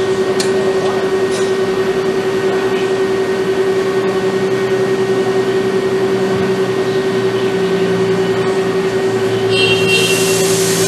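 Motoman HP6 industrial robot arm running through its motions: a steady machine hum with a constant tone, its lower drone swelling and easing as the arm moves. A brighter hissing noise joins near the end.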